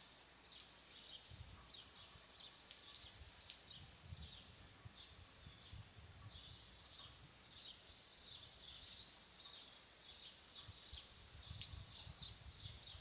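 Faint birds chirping in the countryside, short high notes repeated over and over, with scattered sharp ticks and a low rumble that swells and fades at times.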